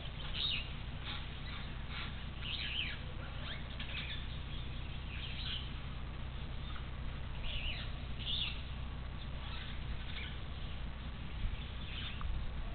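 Short, high chirps and squeaks from small animals, repeated irregularly, over a steady low rumble.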